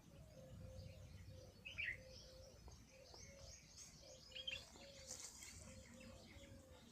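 Faint bird chirping, with two louder chirps about two seconds and four and a half seconds in, over a steady run of short low notes repeating two or three times a second.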